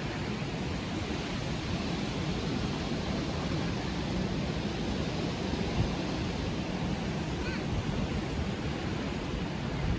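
Steady rush of wind and breaking surf, with wind rumbling on the microphone.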